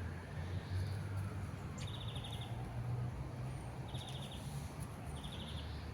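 Thrushes giving three short, buzzy rattling calls, about two, four and five seconds in, over a steady low rumble.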